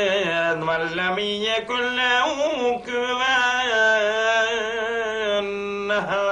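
A man's solo voice chanting a Quran recitation in Arabic, drawing out long held notes with wavering ornaments and pausing briefly twice between phrases.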